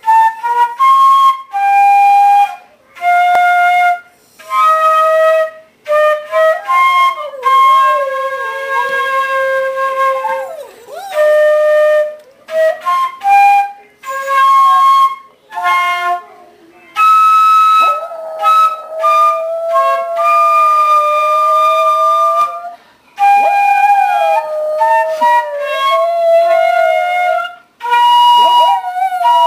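A flute playing slow, separate held notes while a dog howls along. The dog's long wavering howls come in about a quarter of the way through, sliding up and down below the flute's pitch, and carry on through most of the rest.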